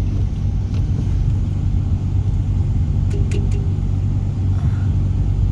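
Steady low rumble of a car's engine and tyres heard from inside the cabin while driving slowly, with a few faint clicks about three seconds in.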